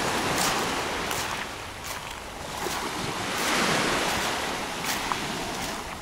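Small sea waves breaking and washing up onto a pebble beach, swelling about half a second in and again around three to four seconds in, with a few short crackles on top.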